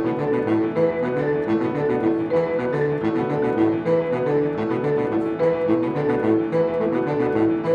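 Chamber trio of saxophone, grand piano and marimba playing a minimalist piece: a driving, evenly pulsed figure of short repeated notes.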